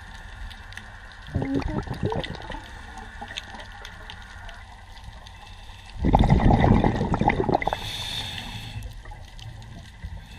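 Scuba diver's regulator breathing underwater. There is a short gurgle of exhaled bubbles about a second and a half in, and a longer, louder rush of bubbles about six seconds in, followed by a brief hiss.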